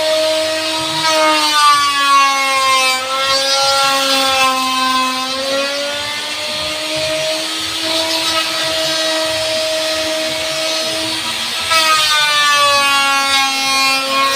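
Electric woodworking power tool motor running with a steady high whine, its pitch sagging and recovering over several seconds as it is loaded in the wood.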